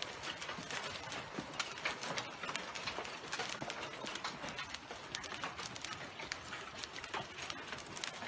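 Hailstones pelting a swimming pool and its paving: a dense, steady patter of sharp clicks and small splashes.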